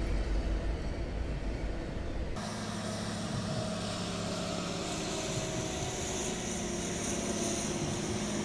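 A double-stack freight train behind a Union Pacific EMD SD70ACe diesel locomotive rolling by with a deep rumble, cut off abruptly about two seconds in by a train of track-maintenance machines passing, a steadier running sound with a held engine hum and a high hiss.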